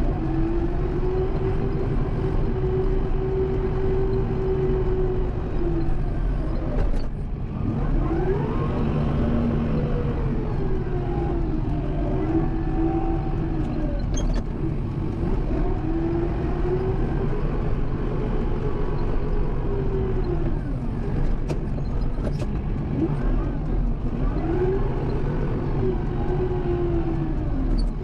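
Kubota M7060 tractor's four-cylinder turbo-diesel engine running steadily under work. Its pitch rises and falls in repeated swells every few seconds as the throttle comes up and eases off while plowing.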